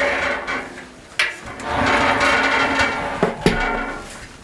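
Wooden shelving scraping as it is slid against the frame or floor, in two long rough scrapes, with a few sharp knocks of wood on wood between and after them.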